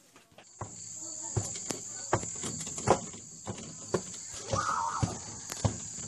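Irregular knocks and slaps of hands against a wooden door, a fraction of a second to a second apart, over a steady high hiss. A short voice-like sound comes about four and a half seconds in.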